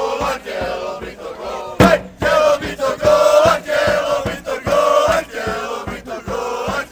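Group of football supporters chanting together in long held notes, with a drum beaten steadily underneath; one sharper, louder hit about two seconds in.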